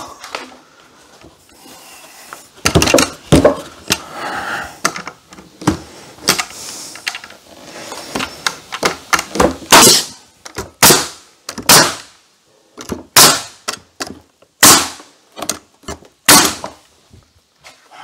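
Pneumatic nail gun firing nails into wooden boards: a dozen or so sharp shots at irregular intervals, coming quicker and louder in the second half.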